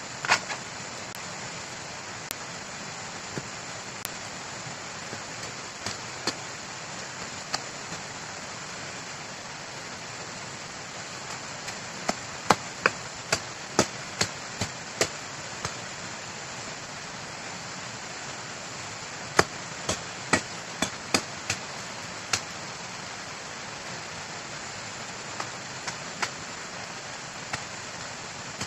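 Sharp snaps and cracks of dry bamboo stems and leaf sheaths being broken by hand, over a steady hiss. Most come in two quick runs of about two snaps a second, one about halfway through and one about two-thirds through, with a few single snaps scattered around them.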